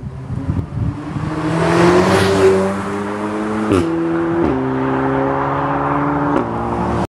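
Audi S3 8V's turbocharged 2.0 TFSI four-cylinder on an aftermarket Milltek exhaust, accelerating away hard. The exhaust note climbs in pitch, then drops at each upshift, about three and a half seconds in and again later, with a short crack at the shifts. The sound cuts off suddenly near the end.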